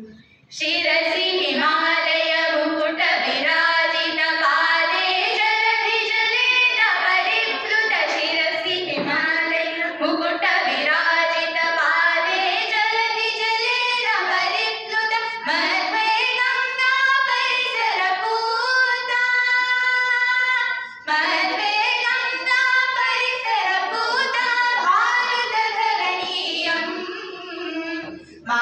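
A group of girls singing a Sanskrit song together into stage microphones, with one long held note about two-thirds of the way through and brief breaths between phrases.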